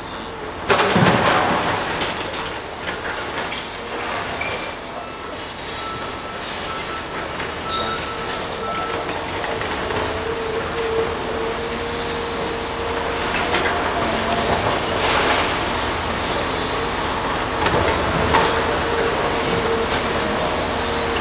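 Heavy machinery running steadily, with thin squealing tones coming and going over it and a louder surge about a second in.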